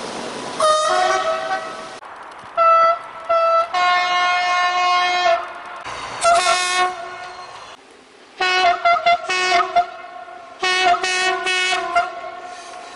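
Train horn, a French SNCF two-tone horn, sounded as a series of blasts switching between a lower and a higher note: some quick short toots, some held for a second or more, in a rhythmic, tune-like pattern. A rushing noise fills the first couple of seconds.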